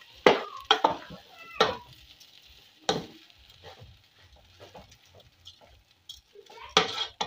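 Wooden spoon stirring rice frying in a large non-stick pan, with scrapes and knocks against the pan about once or twice a second, strongest in the first three seconds. A faint sizzle runs under them.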